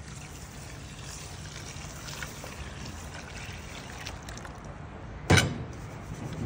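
Warm water being poured onto rice in a bowl to soak it, a steady pouring and trickling. A single sharp knock sounds about five seconds in.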